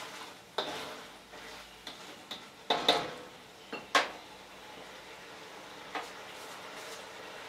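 Metal spatula scraping and clanking against a steel wok while stirring chicken, with the loudest knocks around three and four seconds in. After that only a low, steady sizzle remains as the sauce cooks down.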